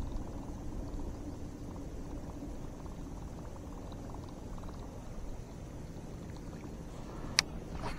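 Water sloshing and lapping against a fishing kayak over a steady low rumble. A single sharp click sounds near the end, followed by a weaker one.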